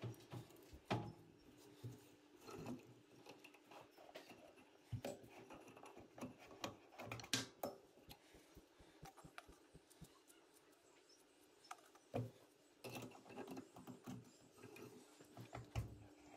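A tap turned by hand in a bar tap wrench, cutting a thread into a metal deck spindle: faint, irregular clicks and ticks as the tap cuts and the wrench is shifted.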